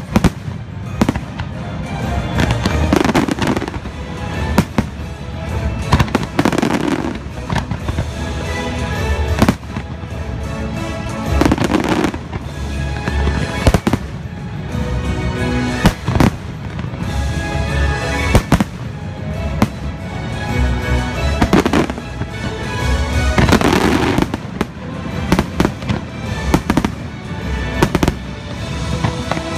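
Firework shells launching and bursting, with frequent sharp bangs every second or two, over loud show music that plays throughout.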